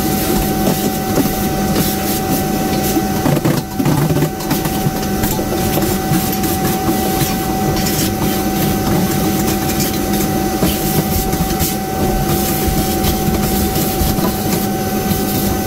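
Vacuum cleaner running steadily with a constant whine, cleaning up grinding and blasting dust; it stops abruptly at the end.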